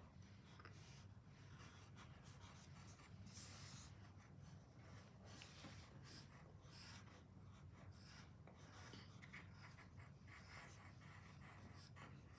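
Graphite pencil scratching on paper in short, irregular strokes, faint, over a low steady hum.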